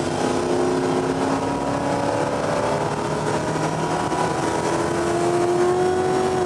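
A motor vehicle engine running, its pitch holding and then shifting slowly up or down a few times.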